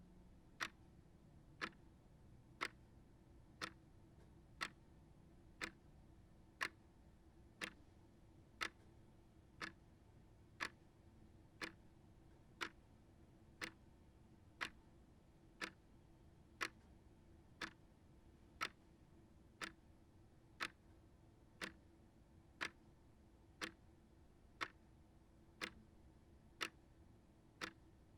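Small shelf clock ticking steadily, about one tick a second.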